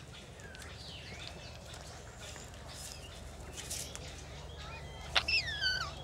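Amazon parrots calling from an aviary: scattered short chirps and whistles, then near the end a loud squawk that falls in pitch.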